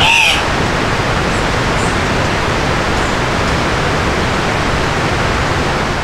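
Steady rushing of a mountain river, an even hiss of running water without a break.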